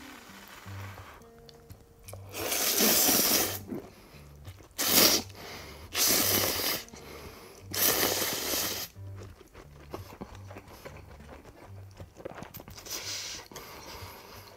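A person slurping tonkotsu ramen noodles: four loud slurps in the first nine seconds, the first the longest, then quieter chewing and a softer slurp near the end. Background music with a low repeating bass line plays underneath.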